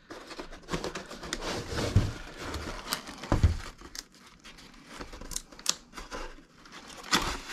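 Corrugated cardboard mailer box being closed and handled: cardboard scraping and rustling, paper packing inside shifting, with a few clicks and two soft knocks about a second and a half apart.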